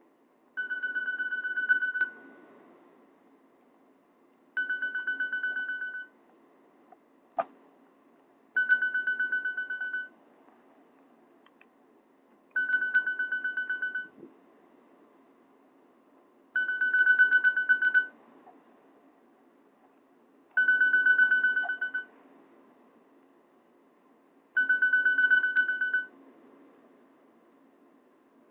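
A Nokia E50 ringtone played through a Nokia 216's speaker: a single high pulsing tone about a second and a half long, repeating every four seconds, seven times. One short click sounds about seven seconds in.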